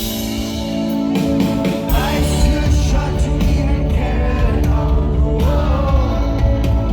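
Live rock band performing, with a male lead vocal over the instruments. The band's low end comes in heavily about two seconds in.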